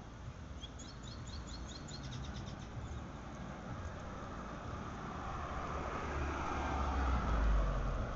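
A car drives past close by, its engine and tyre noise swelling over several seconds, peaking near the end and then fading. About a second in, a bird gives a quick series of high chirps.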